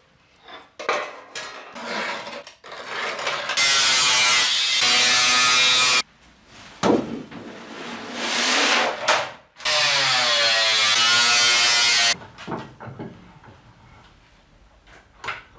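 A power tool cutting sheet steel in two loud bursts of about two and a half seconds each, with a whining tone that shifts in pitch under load. Before them, clatter of the steel sheets being handled on the bench.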